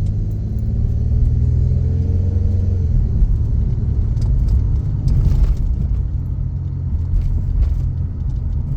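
Car running with a steady low rumble, its engine note rising gently over the first three seconds and then holding. A few light clicks come around the middle.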